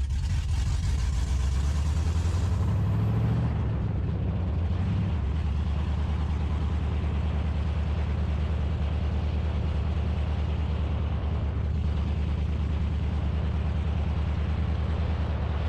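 Second-generation Camaro's engine running as the car drives, its pitch rising briefly about two seconds in and then holding steady. The engine is not running its best, stumbling on a base tune from its Holley fuel system.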